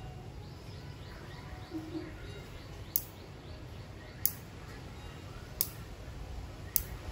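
Nail clipper snipping fingernails: four sharp clicks, each a little over a second apart.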